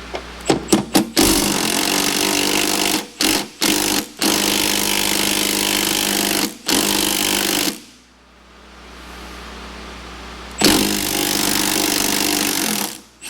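Milwaukee Fuel 3/8-inch cordless impact wrench hammering on a bolt in bursts: a few quick trigger blips, then runs of a second or more, a pause of about three seconds, and a last long run.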